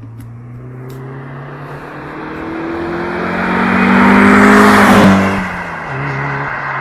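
Mazda MX-5 Miata's four-cylinder engine and exhaust in a fly-by. The car approaches, getting steadily louder, and passes close about five seconds in, its engine note dropping in pitch as it goes by. It then pulls away and fades.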